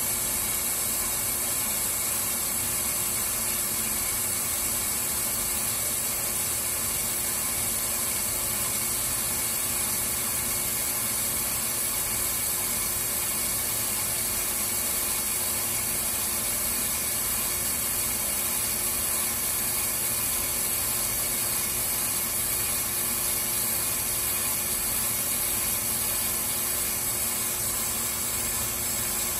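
Brake lathe spinning a brake rotor while its cutting bits skim the rotor faces: a steady whir and hiss of the resurfacing cut, which trues a warped rotor.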